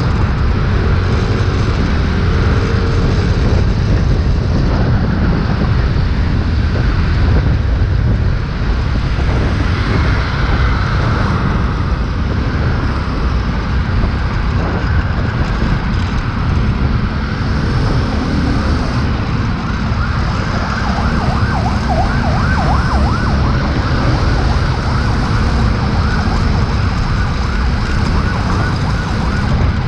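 Loud, steady low rush of wind over the microphone of a moving scooter, mixed with road and traffic noise.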